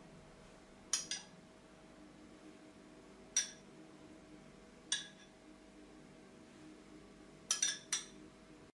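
A metal teaspoon clinking against a small glass bowl of milk: about seven light, ringing taps, singly and in pairs, with a quick run of three near the end.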